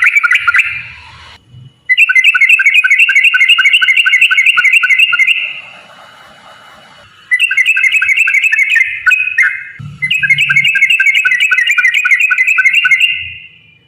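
Yellow-vented bulbul (trucukan) singing in long, rapid rolling phrases of repeated notes. There are four runs, with short breaks about a second in, near the middle, and around ten seconds in.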